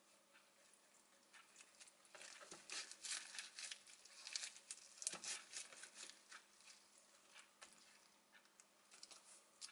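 A sheet of dried seaweed (gim) crackling and rustling under the hands as a gimbap roll is rolled up and pressed tight, densest from about two to seven seconds in, with a few soft clicks either side.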